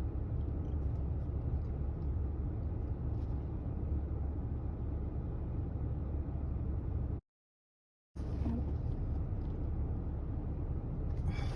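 Steady low rumble of a car heard from inside the cabin. The sound drops out to total silence for about a second just past the middle, then the same rumble resumes.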